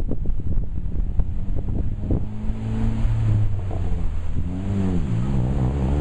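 Wind buffeting the microphone in gusts. From about two seconds in, an engine runs in the background, its pitch dropping and rising again near the end.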